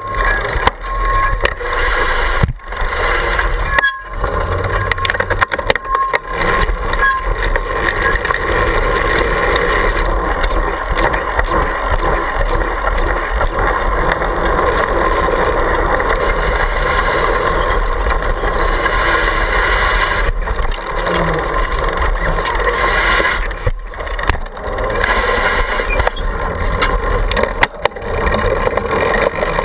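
Mountain bike being ridden on pavement, heard through a GoPro clamped to its rear stay: a loud, steady rumble of tyres, frame vibration and wind on the camera housing, with a few brief sharp dips.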